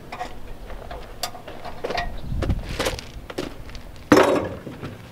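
Clinks and knocks of hand tools and metal hardware being handled, with one loud clank about four seconds in.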